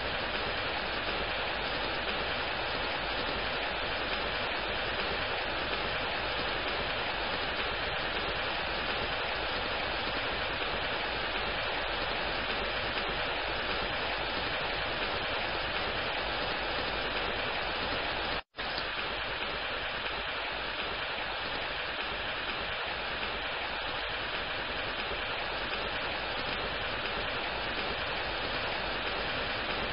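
Steady rain, a dense even hiss with no separate drops standing out. It cuts out for a split second about two-thirds of the way through, then carries on unchanged.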